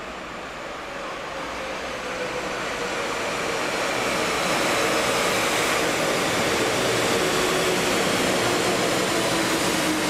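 Metro train coming into a station: a rushing rumble that grows louder over the first five seconds or so, then holds steady.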